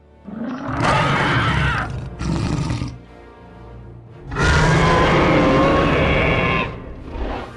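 Dinosaur roars, as from animatronic dinosaurs or dinosaur sound effects: two roars in the first three seconds, then a longer roar starting about halfway through.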